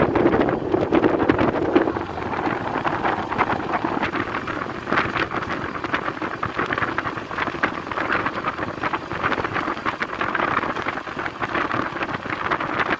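Running noise of an LHB passenger coach in motion, heard through an open window: continuous rumble and clatter of wheels on rail with many short clicks, and wind rushing over the microphone.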